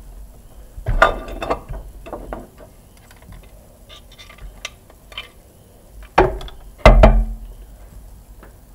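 A wrench clicking and clanking on a bolt of a Kubota tractor's diesel engine, in three short bursts: one about a second in and two louder ones near the end.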